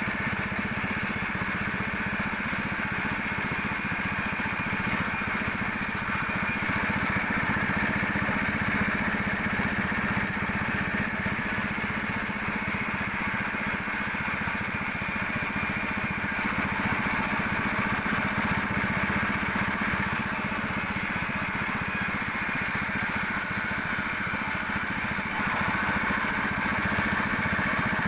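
Sawmill machinery running steadily, a continuous mechanical drone with no pauses.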